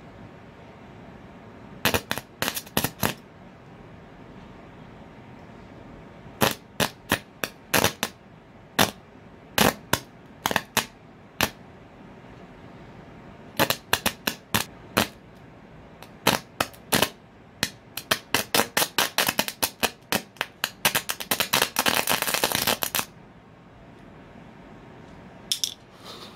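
Sharp snapping and crackling of electrical arcing where a 32-volt power-supply probe touches an iPhone 6 motherboard, in scattered single snaps and short clusters. About three-quarters through it turns into a dense crackle for about two seconds. The arcing burns a hole into the board.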